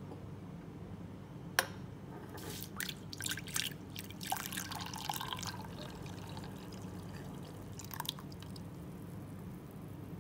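Milk poured into a pan of dry oats, splashing and trickling irregularly, with a single click about one and a half seconds in.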